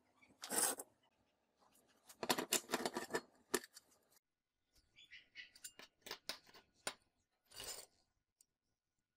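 Small steel tube and sheet-metal bracket handled with a hand tool on a worktable: sharp metallic clinks and scrapes. One loud clatter about half a second in, a quick run of clicks and scrapes around two to three and a half seconds, lighter ticks after that, and another short scrape near the end.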